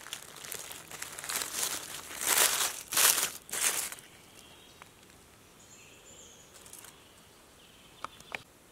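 Dry fallen leaves rustling and crackling as a hand digs into the leaf litter and pulls out a mushroom, in a few loud bursts that stop about four seconds in.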